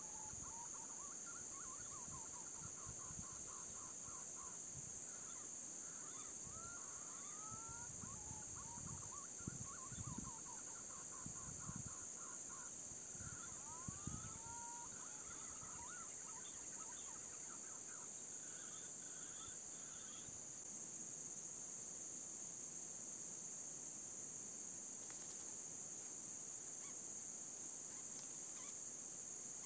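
Green pigeons (punai) calling: runs of wavering whistled notes and curving rising-and-falling whistles for about the first twenty seconds, then stopping. A steady high insect drone runs underneath, and a few soft low thumps come in the middle.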